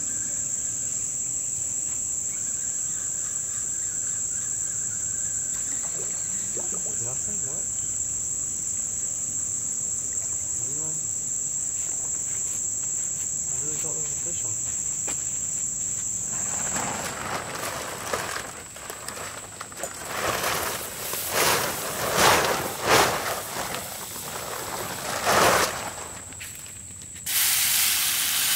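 Night insects trilling in a steady high-pitched chorus, which stops abruptly after about seventeen seconds. A run of irregular noisy bursts follows, and near the end a steady sizzle of food frying on a campfire starts.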